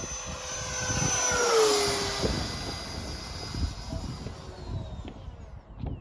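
Freewing Stinger 90 electric ducted-fan RC jet flying past: its high whine swells, drops in pitch as it goes by about a second and a half in, then fades into the distance.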